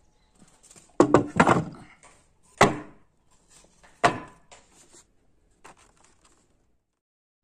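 Heavy wooden slabs and a plank knocking down onto a wooden workbench: a quick run of three or four knocks about a second in, two more single knocks a little over a second apart, then a few lighter taps as the wood is shifted.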